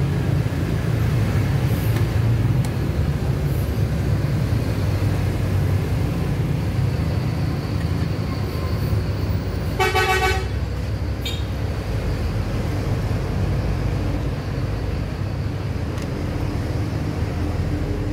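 A vehicle horn toots once, briefly, about ten seconds in, over a steady low rumble of road traffic.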